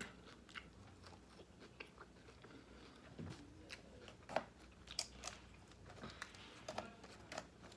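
Faint close-miked chewing: a person eating, with scattered soft crunches and mouth clicks.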